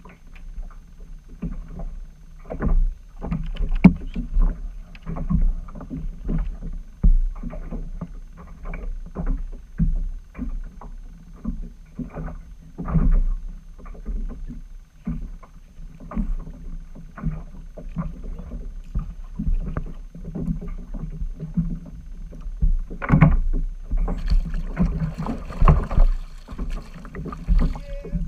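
Small waves slapping and knocking irregularly against the plastic hull of a Hobie Compass kayak, over a low rumble of water, with a hissing rush of noise joining in about 24 seconds in.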